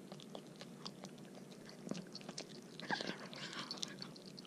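Chihuahua chewing and crunching on a chicken foot held out by hand: faint, irregular little crunches and clicks of teeth on bone, busier about three seconds in.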